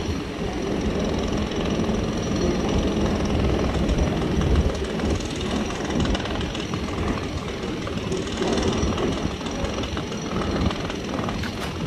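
New York City Subway R188 car on a 7 train standing at an elevated platform with its doors open, a steady rumble and rattle.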